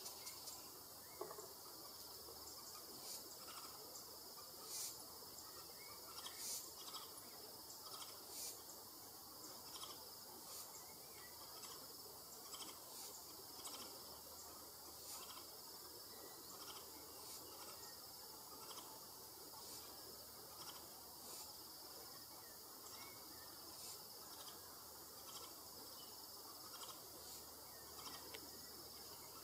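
Faint steady high-pitched insect chorus, with scattered short sharp ticks, the louder ones in the first third.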